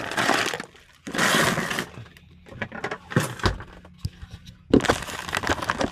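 Plastic food pouch crinkling and rustling as it is handled, in several bursts, with a few sharp clicks and knocks in between.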